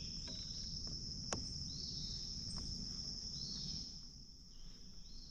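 Crickets trilling in a steady high drone, with a light click about a second in.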